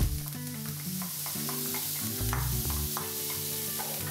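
Onions and mushrooms sizzling in a frying pan while a spoon stirs them, with soft background music.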